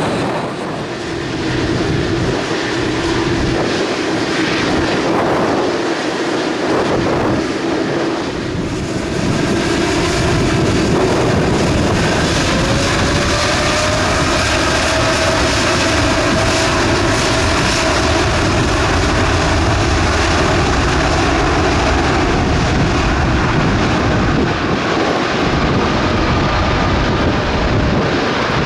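Jet airliner's engines heard as a plane passes, a loud continuous rush of noise with whining tones that slide slowly down in pitch from about halfway through.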